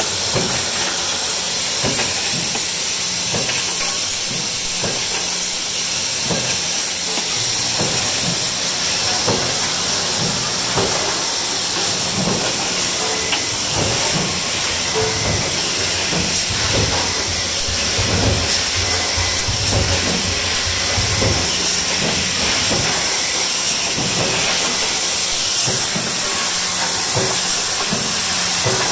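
Minster PieceMaker 100-ton mechanical stamping press line running, with its strip feed and scrap chopper: a steady loud hiss over a low hum, broken by a stream of sharp knocks and clicks.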